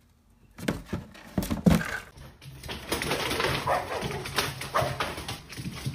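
A few sharp knocks, then a dog's short whimpers over a steady hiss.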